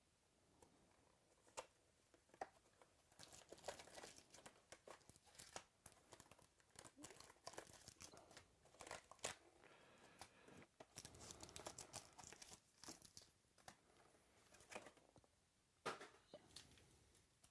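Faint crinkling and tearing of trading card pack wrappers, with the crackle of cards being handled, as packs are opened; the rustling is busiest about two thirds of the way through.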